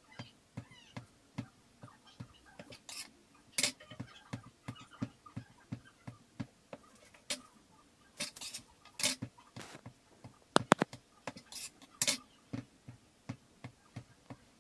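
Hands separating and sliding squares of soft semolina dough across a wooden countertop: irregular soft taps and scrapes, with a few sharper clicks and a quick cluster of them a little past the middle.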